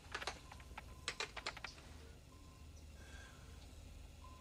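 Faint, quick clicking of keys on a computer console for about the first second and a half, then a few short, soft electronic beeps.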